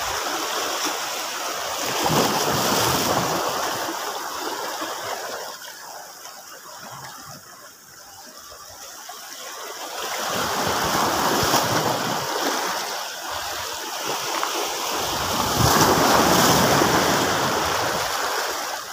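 Small sea waves washing and splashing over a rocky shore, swelling and easing again several times.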